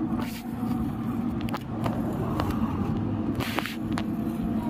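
Steady low road rumble with a constant hum, broken by a few sharp clicks and a short hiss about three and a half seconds in.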